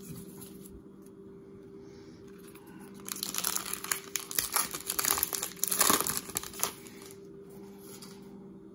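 Wrapper of a 2020 Topps Gypsy Queen baseball card pack being torn open and crinkled by hand, a dense crackling that starts about three seconds in and lasts a few seconds.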